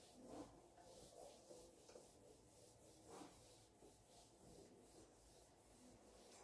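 Faint rubbing of a duster wiping a whiteboard clean.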